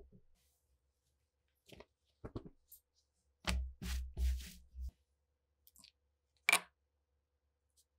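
Gloved hands rubbing and patting a piece of suede leather flat on a wooden workbench: a few rustles, then several rubbing strokes with dull thumps, and a single sharp tap near the end.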